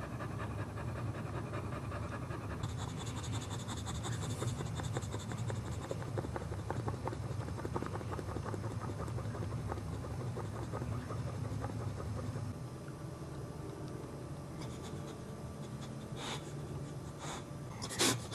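Heavily pregnant Boxer panting rapidly through open mouth while in labour, a little quieter in the last third. Two short sharp sounds near the end.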